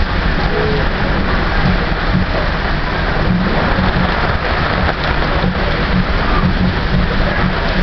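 Heavy rain falling steadily in a thunderstorm, with a low, continuous rumble underneath.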